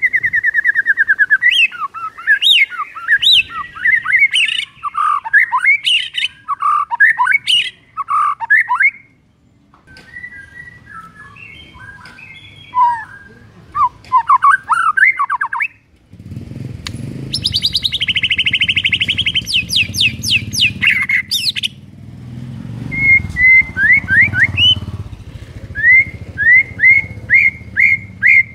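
White-rumped shama singing a loud, varied song: fast trills, sliding whistled notes and harsh chattering phrases with short pauses between them. A low steady rumble runs underneath for several seconds in the second half.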